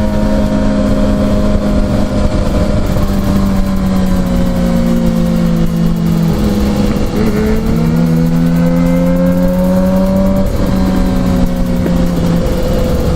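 Motorcycle engine running as the bike is ridden, its pitch drifting and shifting with throttle and gear changes, under heavy wind noise on a helmet-camera microphone.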